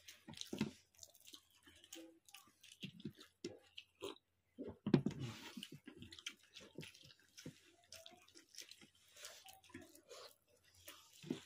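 Wet squelching and smacking of bare hands mixing and scooping soft rice with mashed vegetables, mixed with close mouth sounds of chewing and lip-smacking, in short irregular bursts.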